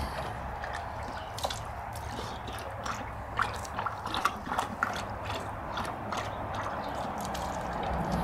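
Bully Kutta dog lapping water from a plastic bowl: a run of quick, irregular wet clicks and splashes, busiest about halfway through.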